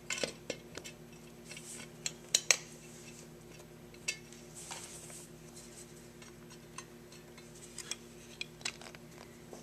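Metal carburetor parts from an International 460 tractor clicking and clinking against each other and a stainless steel bench as the top section is worked onto the carburetor body by hand. A few sharper clicks come about two seconds in, over a faint steady hum.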